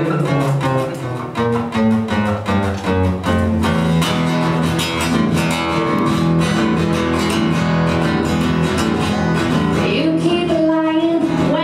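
Acoustic guitar strummed in a steady rhythm, with a woman singing lead into a microphone over it.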